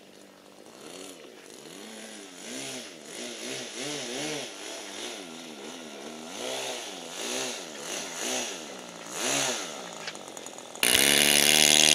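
Radio-controlled model airplane's motor and propeller whining in flight, the pitch rising and falling again and again as it flies around. Near the end it suddenly becomes much louder and holds a steady pitch as the plane comes close.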